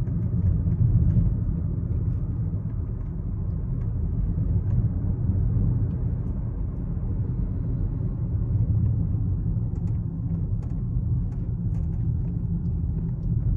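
Steady low rumble of a 12th-generation Toyota Corolla Altis heard from the car, with faint light clicks and ticks in the second half.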